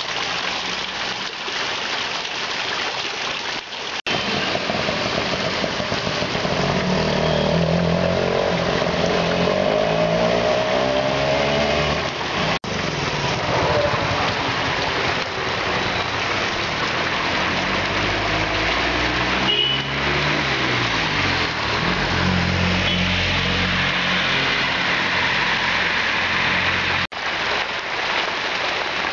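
Heavy rain falling on a road and rushing gutter runoff, with motor vehicle engines running through most of it, their pitch rising and falling as they pass.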